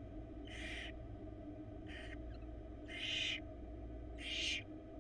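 Barn owl nestlings giving harsh, hissing begging calls: four rasping hisses about a second apart, the last two loudest, over a steady low hum.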